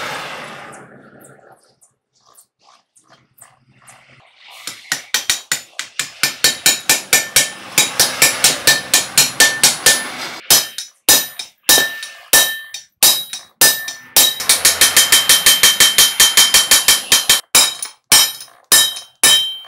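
Hand hammer striking steel over and over, driving a new bearing into the eye of a semi truck's V-bar torque rod. Quick runs of sharp metallic taps, about four a second, begin about four seconds in. Each tap leaves a brief ring, and slower single blows come between the runs.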